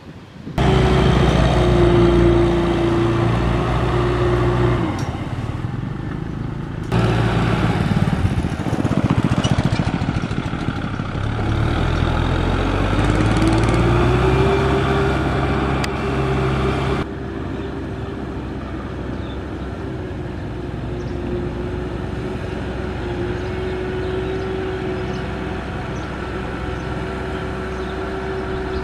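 Kubota M6040 tractor's diesel engine running under load, its pitch climbing stepwise as it revs up about halfway through. The sound changes abruptly several times, as at edits.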